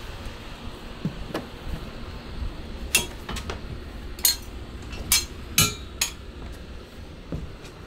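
A series of irregularly spaced sharp clinks and knocks, the loudest between about three and six seconds in.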